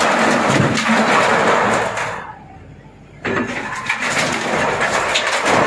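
Hydraulic excavator breaking down a concrete-block wall and its steel-mesh cage: repeated cracking, crashing and scraping of concrete and metal over the excavator's engine. A short quieter lull about two seconds in, then the breaking resumes.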